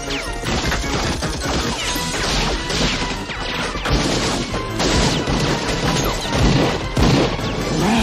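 Sustained rapid gunfire with glass and wood smashing, a dense, continuous run of cracks and crashes.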